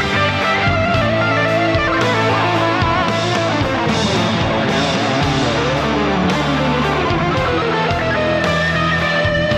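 Electric guitar playing a melodic lead solo of quickly moving notes over a backing track with sustained low bass notes and a steady drum beat.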